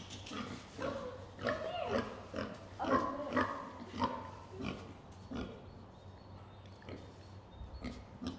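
Pig grunting in a run of short grunts, about two a second, growing quieter and sparser after about five seconds.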